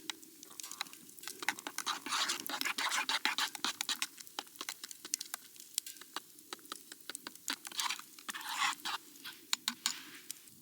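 Camp cooking: a utensil taps and scrapes in a pan amid many small irregular clicks. Food sizzles in two louder rushes, about two seconds in and again near the end.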